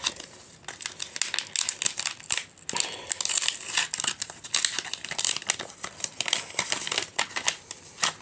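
Packaging crinkling and rustling in the hands as a pack of stickers is opened and handled, in irregular crackling bursts that are busiest through the middle.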